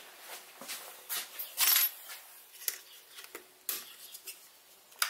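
Scattered light metallic clicks and clinks of hand work at a mini mill's table, with a short, louder rustling scrape about one and a half seconds in.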